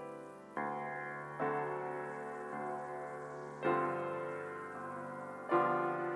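Piano playing slow, soft chords. A new chord is struck every one to two seconds and left to ring and fade.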